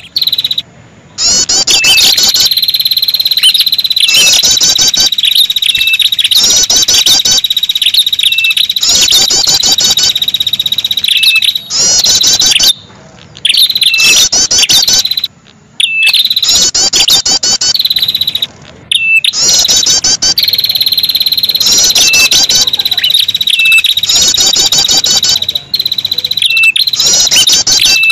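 Bird-lure recording of ashy tailorbird calls: bursts of rapid, high repeated notes over a continuous high-pitched trill, the phrases repeating over and over. The sound cuts out abruptly for a moment several times, as in an edited loop.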